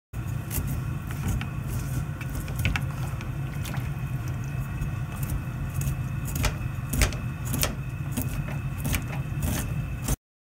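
A steady low mechanical hum with a few faint steady tones above it, and scattered sharp clicks and light knocks of hands handling the boar tongue and a paper towel on a stainless-steel counter; the sharpest click comes about seven seconds in.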